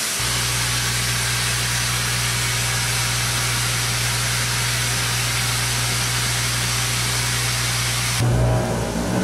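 Hwacheon D2-5AX 5-axis machining center face-milling a mold-steel block with a 50 mm face mill: a steady low spindle hum under an even hiss of cutting. About 8 seconds in the sound changes abruptly, the hiss dropping away.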